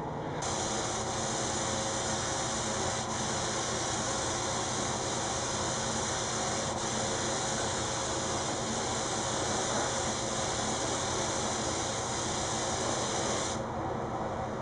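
Gravity-feed spray gun hissing steadily as it sprays finish onto a guitar body; the hiss stops about a second before the end, leaving a steady lower background noise.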